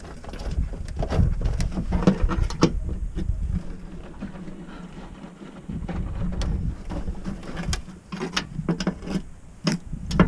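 Irregular metal clicks and knocks from hand work on machinery, coming in scattered clusters over a low rumble.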